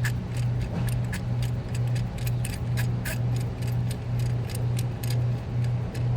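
Spark plug being threaded by hand into the cylinder head with a socket and extension, giving irregular light metallic clicks and ticks. A steady low hum that swells and fades about twice a second runs underneath.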